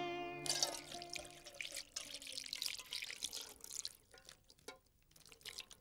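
Milk poured from a plastic packet into a saucepan, a steady splashing pour lasting about three and a half seconds, with a held musical chord fading out at the start. After the pour, a few light knocks and rustles.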